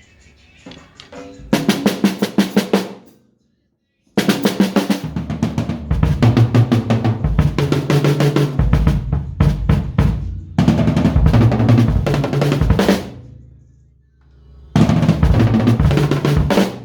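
Rapid drum hits and snare-like rolls over a stepping bass line, played in loud bursts that start and stop suddenly: a short burst, a brief silence, then a long stretch of playing and two more bursts.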